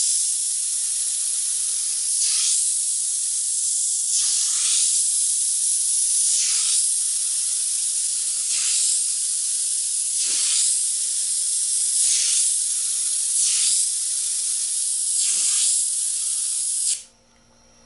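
Airbrush spraying paint: a steady hiss of compressed air with brief surges about every two seconds as fine lines are drawn, cut off suddenly near the end.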